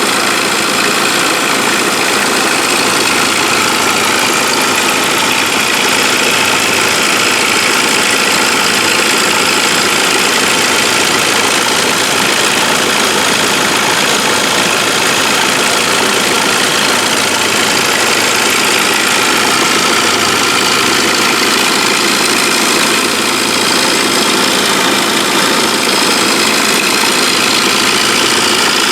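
Saab 9-5 engine idling with a steady rattle from the pulley area at the front of the engine, the rattle that builds after a few minutes of running. A new water pump, AC compressor, idler pulley and upper timing chain rail have not cured it, and the owner fears the timing chain.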